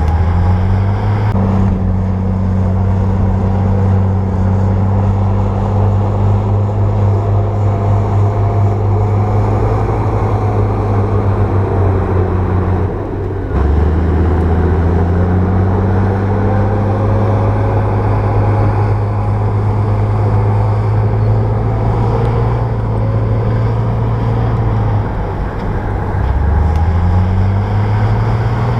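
Bulldozer diesel engine running steadily under work. Its pitch sags and climbs back twice, about halfway through and again near the end.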